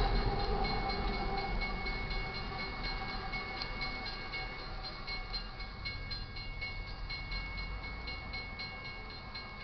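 The rear distributed-power locomotive and last cars of a loaded coal train rumble past and fade into the distance. Over them a grade-crossing warning bell rings in rapid, evenly spaced strokes.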